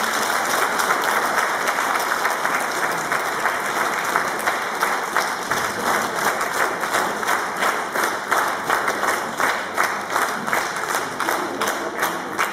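Audience applauding, the claps falling into a more even rhythm in unison about halfway through.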